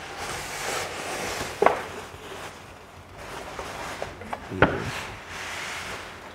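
Grey seamless backdrop paper rustling as it is unrolled by hand from its roll, with two sharp knocks, about one and a half and four and a half seconds in.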